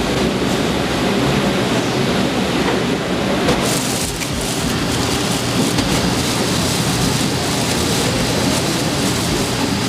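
Steady rushing noise of running water at a fish-market cutting station, brightening into a sharper hiss about three and a half seconds in.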